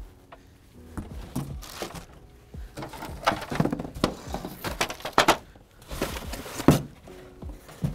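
Cardboard box and plastic-wrapped plastic bucket lids being handled during unpacking: cardboard scraping and bumping, plastic crinkling, and irregular knocks as the lids are lifted out and set on the table, the sharpest knock near the end.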